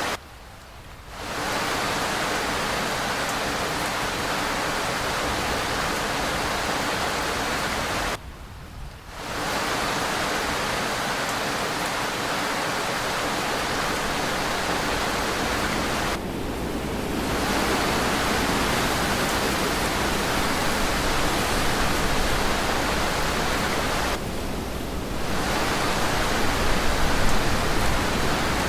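Steady heavy rain. The level briefly dips about every eight seconds: deeply near the start and about eight seconds in, more lightly about sixteen and twenty-four seconds in.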